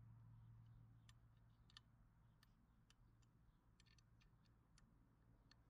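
Near silence with faint, irregular small clicks, a dozen or so, from a hand tool working the screws of a Barkbusters hand-guard clamp on a motorcycle handlebar.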